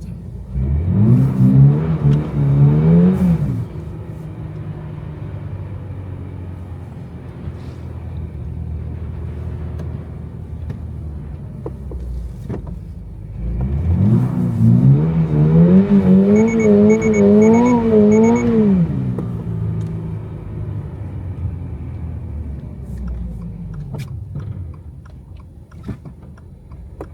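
Toyota GR86's flat-four engine revving hard twice while the car slides in snow, the revs climbing and bouncing up and down with the throttle and wheelspin, then settling to a steady low drone in between. Four short high beeps sound during the second rev burst.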